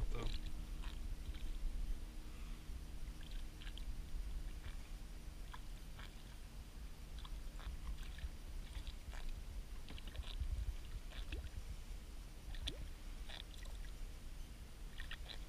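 Faint small splashes and scattered light clicks from a small hooked fish thrashing at the surface beside a plastic kayak, over a steady low rumble.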